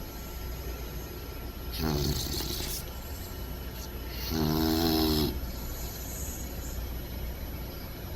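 English bulldog puppy snoring in its sleep: two snores about two and a half seconds apart, the second longer and louder, each with a breathy hiss, over a steady low hum.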